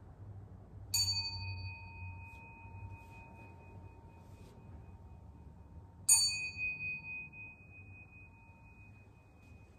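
Buddhist bowl bell struck twice, about five seconds apart, the second stroke louder. Each stroke rings on in clear high tones that fade slowly, with the highest one lasting longest. The strokes mark the priest's full prostrations before the altar.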